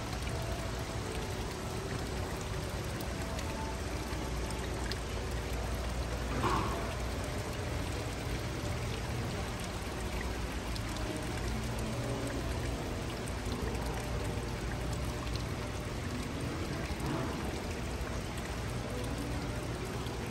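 Steady rush of running water, briefly louder about six and a half seconds in.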